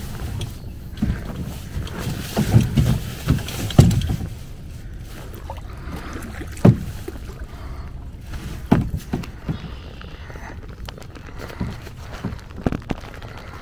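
Small folding boat being paddled by hand: irregular strokes and water sounds, with a few dull knocks, the sharpest about seven seconds in.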